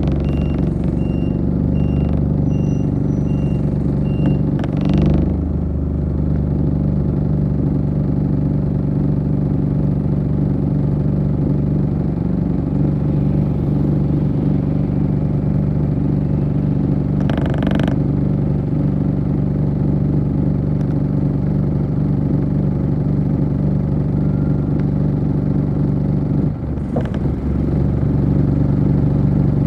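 City bus engine running steadily at idle, heard from inside the passenger cabin. In the first few seconds comes a quick run of evenly spaced electronic beeps, and about halfway through a short burst of noise.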